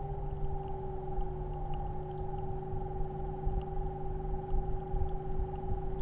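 Samsung R32 air source heat pump outdoor unit running soon after start-up in hot water mode: a steady two-tone hum over a low rumble. The lower tone settles a little lower in pitch in the first couple of seconds, then holds.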